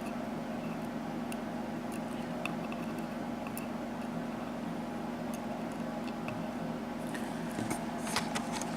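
Faint scattered clicks of small brass lock pins and springs being handled and arranged, a few louder ones near the end, over a steady low electrical hum.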